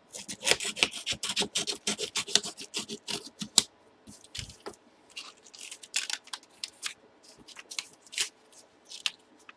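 Packaging handled and opened by hand: a fast run of crisp crinkles and rustles for the first few seconds, then scattered crackles and taps.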